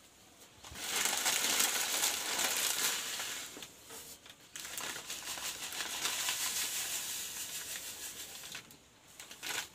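Plastic packet of dry vermicelli crinkling as the noodles are crushed by hand and dropped into milk in a pan, a dense crackly rustle, loudest in the first few seconds, with a short sharp crackle near the end.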